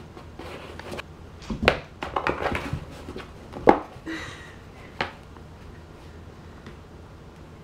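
A kitten batting at and clawing into a hole in a cardboard box: scattered scrapes and rustles of cardboard with a few sharp knocks, the loudest about halfway through.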